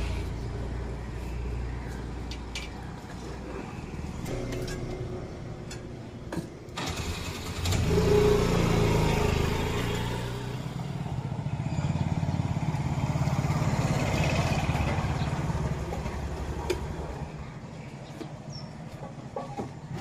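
Small motor scooter's engine running as it is ridden, louder about eight seconds in and again through the middle, then easing off near the end.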